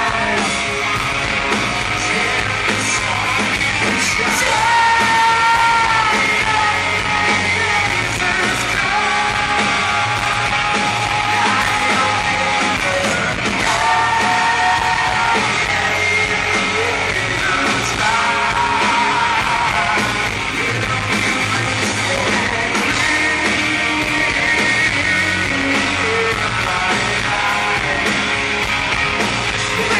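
Live rock band playing loudly, with a male singer belting long held notes over electric guitar and drums, heard from the audience floor.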